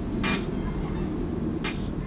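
Steady low engine rumble, with two short hissing bursts, one just after the start and one near the end.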